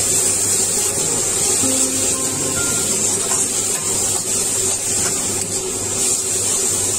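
Vegetables sizzling in a hot metal wok while a metal spatula scrapes and turns them: a steady hiss with scraping strokes.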